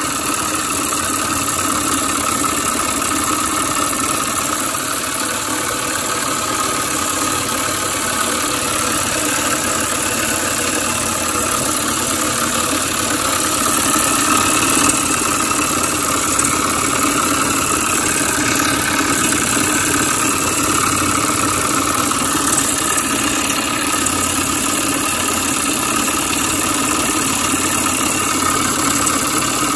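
Homemade V-twin steam engine running steadily at speed: a continuous, even mechanical running noise mixed with a hiss of steam.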